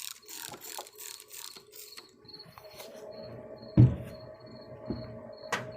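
Hand rubbing strokes on a thin sheet-metal tool box drawer, several a second, as it is cleaned. These stop about two seconds in, and a single thump follows later. A cricket chirps steadily in the background.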